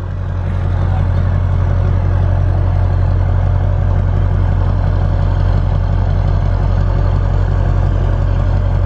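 Truck engine idling steadily, creeping forward at low speed to take up the slack in a tow strap.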